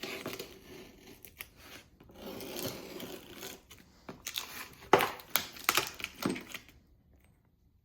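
Packaging of a set of ARP connecting rod bolts being rustled and torn open, followed by a cluster of sharp clicks and knocks about four seconds in, the loudest near the five-second mark, dying away near the end.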